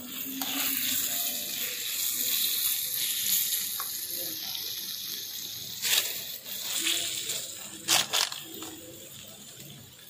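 Curry sizzling in a miniature iron kadai as a small spatula stirs it, the hiss easing after about six seconds. The spatula scrapes and taps against the pan, with two sharp knocks close together about eight seconds in.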